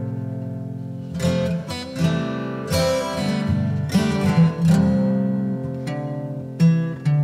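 Background music: a string of plucked notes and chords, each struck sharply and left to ring and fade.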